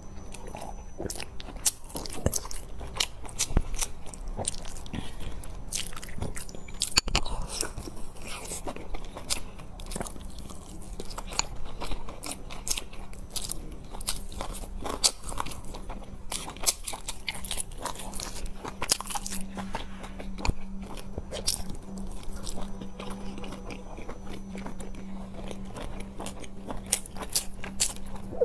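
Close-miked eating: biting into and chewing baked stuffed buns, with many short wet mouth clicks and smacks throughout. A faint steady hum sits underneath.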